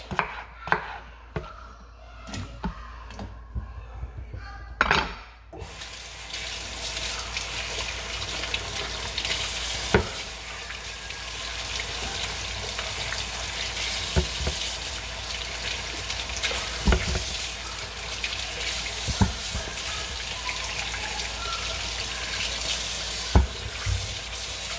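A knife clicks through potatoes onto a cutting board for about five seconds. Then a kitchen tap runs steadily, with a few knocks of dishes or pans.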